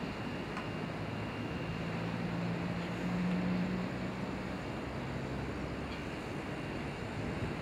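Steady outdoor wind noise and a low rumble, with a low droning hum that swells for a couple of seconds in the middle and then fades.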